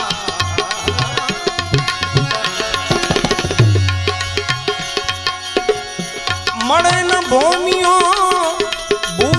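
Devotional bhajan music: tabla keeping a steady rhythm under a sustained accompaniment, with a wavering melody coming in about six and a half seconds in.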